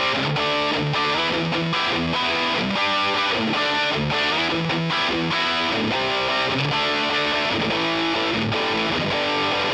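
Background music led by a guitar, with a steady beat.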